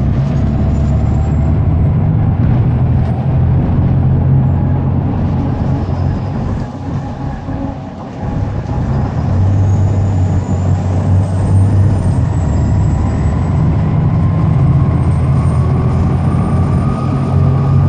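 Volvo B7 bus's six-cylinder diesel engine heard from inside the cabin, pulling under acceleration. The engine note dips briefly about seven seconds in, then builds again, with a faint high whine rising over it.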